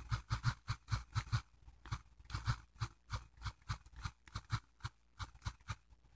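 Typing on a smartphone's on-screen keyboard: a quick, uneven run of short clicks, one per key press, about four a second, with a brief pause about two seconds in.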